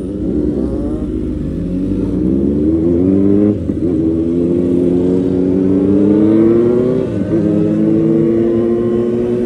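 Motorcycle engine accelerating through the gears. Its pitch climbs steadily and drops sharply at each upshift, three times.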